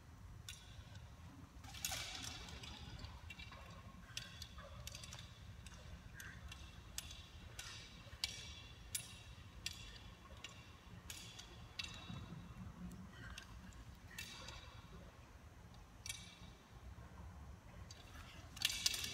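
Faint, irregular metallic clicks and clinks from aerial rigging hardware as the apparatus swings and turns under the aerialist, over a steady low hum.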